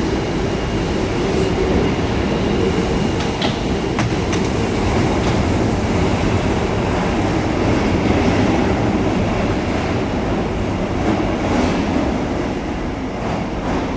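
Osaka Metro 22 series subway train running, a steady rumble with a few sharp clicks from the wheels over the track, easing off slightly near the end.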